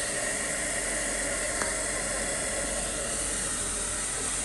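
Hand-held hair dryer running steadily: an even airy hiss with a faint whine.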